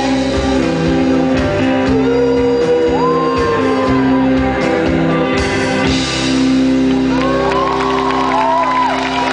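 Live rock band playing through a PA, electric guitar and bass holding sustained notes, with a voice singing or shouting over it.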